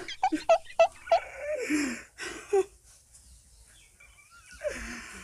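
A young man crying: quick gasping sobs, then a drawn-out wail that falls in pitch, and another wail near the end.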